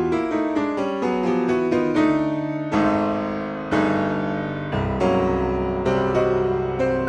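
Background piano music: a quick run of single notes, then chords struck about once a second, each left to ring and fade.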